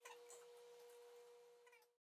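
Near silence, with a faint steady hum that fades out near the end.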